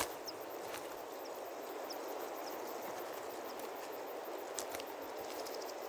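Steady outdoor ambience with an even rushing hiss, a few soft knocks, and several short high chirps scattered through it.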